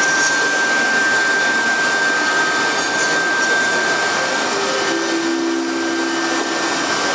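Double-head CNC router's two 3.5 kW air-cooled spindles cutting a board, a steady high whine over a continuous hiss of the cut. A lower hum joins for a couple of seconds about five seconds in.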